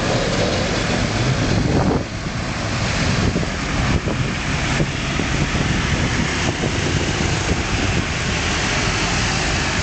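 Steady rushing of wind buffeting the microphone, over the rumble of road traffic.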